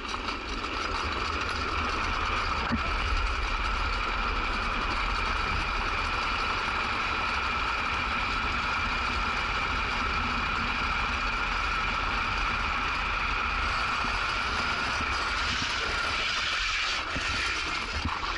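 Drift trike coasting downhill on asphalt: a steady rolling roar from its hard plastic rear wheels on the road, with wind rumbling on the microphone.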